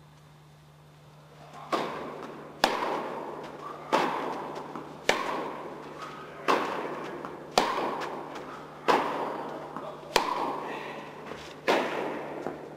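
Tennis ball struck back and forth in a rally: about nine sharp pops of racket hits and bounces, roughly a second apart, each ringing out with a long echo in the large indoor tennis hall.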